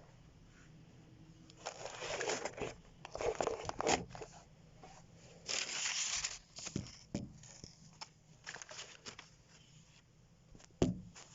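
Rustling and crinkling close to the microphone in irregular bursts, with scattered clicks and a short knock near the end.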